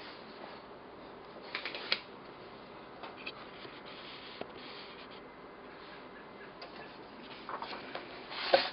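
Faint handling noise of a paper sketch pad: a few soft rustles and clicks, the last cluster near the end as a hand moves in, over a low steady hiss.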